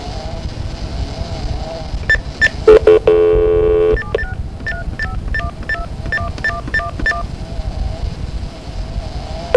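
Telephone line hiss, then a steady tone for about a second, followed by a quick run of about ten touch-tone (DTMF) digits being dialed, about three a second.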